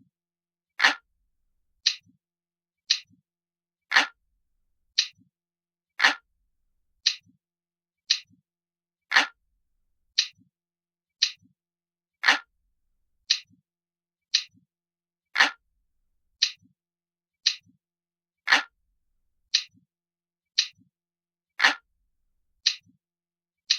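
Clock ticking steadily, about one short sharp tick per second with silence between.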